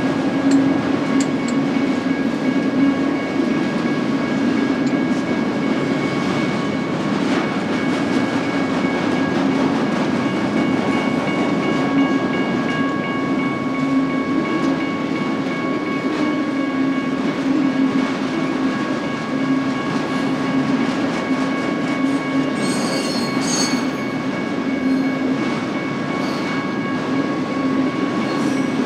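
BNSF freight train's cars rolling past: a steady rumble of wheels on rail with a faint steady whine. A brief high wheel squeal comes about 23 seconds in.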